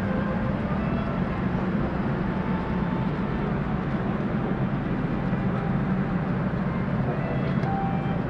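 Steady low vehicle drone with an even hiss above it, unchanging throughout.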